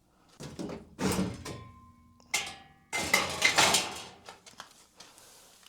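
A series of clanks and scrapes from handling a sheet-metal furnace cabinet, with a short ring after the clank about a second in. The loudest clatter comes just past halfway.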